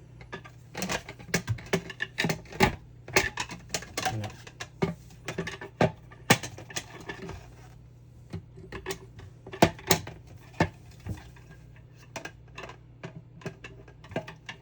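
Parts of a Riccar R70 floor washer clicking, knocking and clattering irregularly as they are handled and pushed together, a part fitted on backwards that will not seat. A steady low hum runs underneath.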